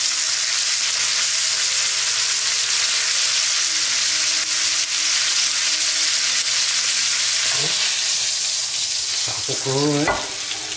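A New York strip steak sizzling steadily as it fries in foaming butter and oil in a nonstick pan. The sizzle dies down near the end as the steak comes out of the pan.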